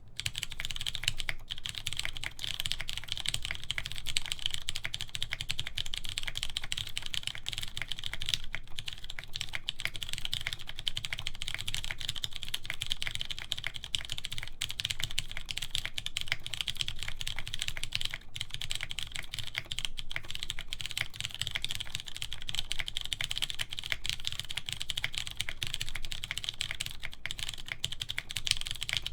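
Fast continuous typing on a mechanical keyboard with lubed, filmed Cherry MX Clear tactile switches in an aluminium plate, under PBT DCS keycaps.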